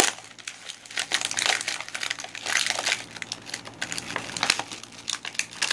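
Plastic toy packaging crinkling in irregular bursts as hands handle and pull it open.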